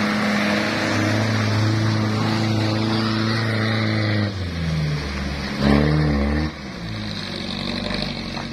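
Mitsubishi 4x4 pickup's engine pulling hard at steady revs as the loaded truck climbs a muddy slope. About four seconds in the pitch drops, a brief louder surge of revs with wavering pitch follows, and then the engine sound falls away as the truck moves off.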